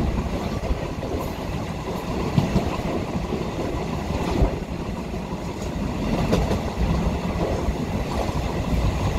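Steady low rumble of a moving vehicle heard from inside it, with a few faint knocks.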